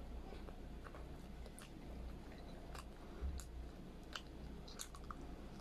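A person chewing a mouthful of pork humba (braised pork) and rice, with scattered short wet mouth clicks over a low steady hum.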